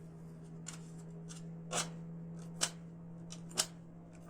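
Sharp little clicks and snaps as the protective cover over a laptop's RAM slot is opened, about six in all, the three loudest roughly a second apart, over a faint steady hum.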